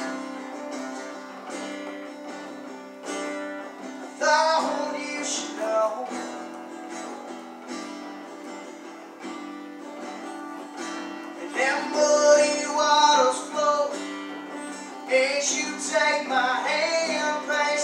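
Acoustic guitar strummed and picked along with a recorded country-rock song, with singing coming in and out in phrases.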